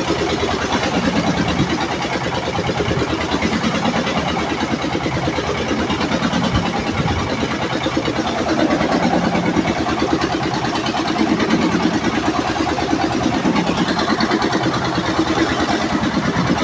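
Heavy rain with strong wind, a loud, even rushing noise that does not let up, with a low steady hum underneath.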